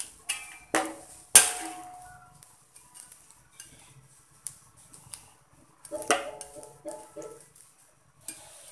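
A metal ladle knocks and scrapes against a metal wok while stirring chicken gulai. Sharp clanks with a brief ring: three in the first second and a half, the third the loudest, then a cluster of clinks about six seconds in.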